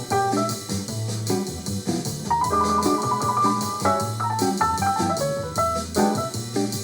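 Instrumental jazz with keyboard chords and melody, a walking bass line and drums with steady cymbal ticks, played back through a compact Bluetooth speaker.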